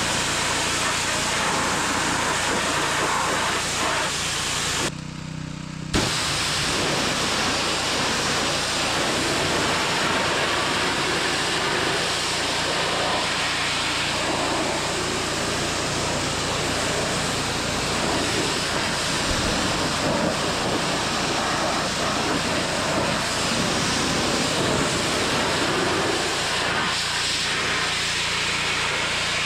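Pressure washer running, its water jet spraying with a loud, steady hiss over the low hum of the machine. About five seconds in the spray stops for about a second, then starts again.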